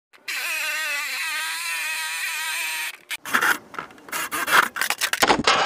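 A handheld electric metal shear whines steadily as it cuts through an aluminum sheet for about three seconds. A cordless drill then grinds into the aluminum in short, uneven bursts. Music comes in near the end.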